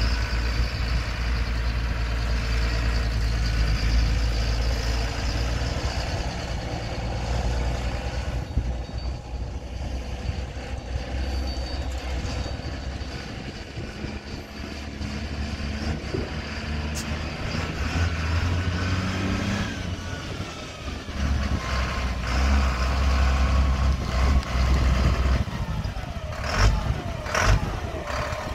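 Diesel engine of a 1999 Sterling LT8511 tandem-axle dump truck driving, its note rising and falling as it moves off and turns. Two short, sharp sounds come near the end.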